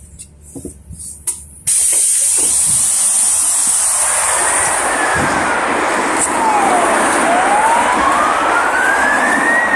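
Loud street traffic noise comes in suddenly about two seconds in, and from about halfway an emergency vehicle's siren wails, gliding slowly up and down in pitch.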